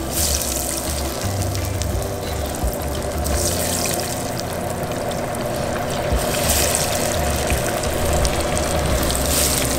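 Cornmeal-coated mahi pieces deep-frying in hot peanut oil: a steady bubbling hiss that swells every few seconds as more pieces go into the oil.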